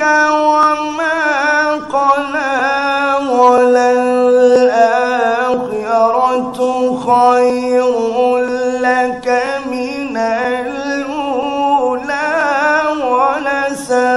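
A man reciting the Quran in the drawn-out melodic style, holding long ornamented notes with a wavering vibrato. His held note steps down in pitch about three seconds in.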